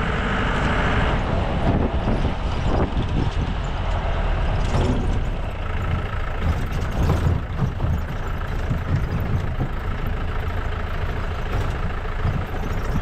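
Jeep driving along a rough dirt track: a steady low engine and road rumble, with occasional knocks and jolts.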